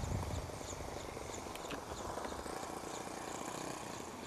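Faint steady buzz of a radio-controlled ornithopter flapping in flight, with wind rumbling on the microphone, strongest in the first half second.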